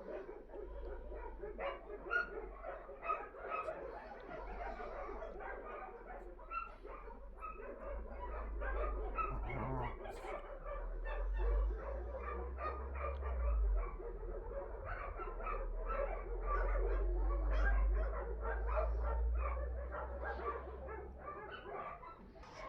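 Many dogs barking and yipping at once, dense and overlapping, with a low rumble through the middle stretch.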